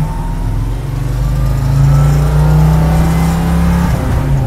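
Hot-rodded 1940 Ford truck's 351 V8 accelerating hard through the gears, heard from inside the cab. The revs drop at a shift at the start, climb and hold, then fall again at another shift near the end.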